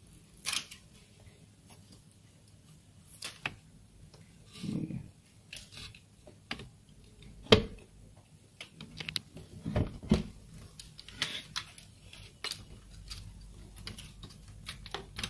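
Irregular clicks, taps and light knocks of a dot matrix printer's metal frame and plastic carriage parts being handled by hand, with a few stronger knocks about halfway through.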